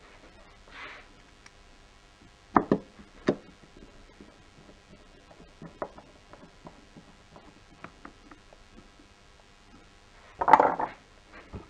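Screwdriver clicking and tapping against the plastic of a Mercedes W212 steering wheel while the shift paddles are worked loose. It is mostly quiet, with three sharp clicks a few seconds in, a few fainter ticks, and a brief louder clatter of handling near the end.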